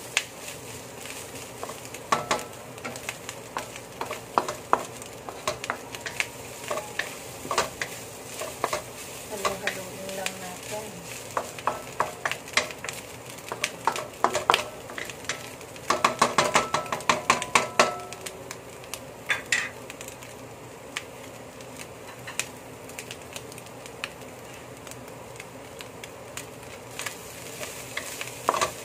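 Shredded carrots sizzling in oil in a wok while a wooden spatula stirs and tosses them, scraping and knocking against the pan. There is a flurry of quick knocks a little past halfway.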